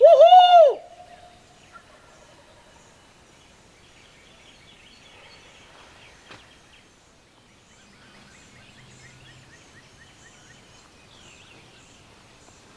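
Owl-style hooting, the last hoot a long drawn-out note with a falling end that stops about a second in. After that, faint songbird chirps.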